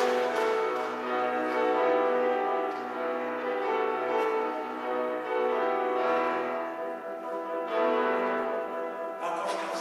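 Grand piano playing a slow passage of held chords that change about once a second.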